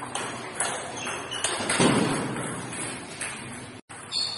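Table tennis rally: a celluloid ball clicking off paddles and the table at an uneven pace, with a heavier thud about two seconds in, echoing in a large hall.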